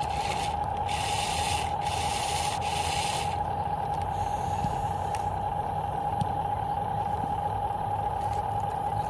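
A radio-controlled construction model's motor and gearing whining steadily at one pitch over a low rumble. For the first three seconds or so there is also a gritty scraping hiss, like soil or sand being worked, which then stops.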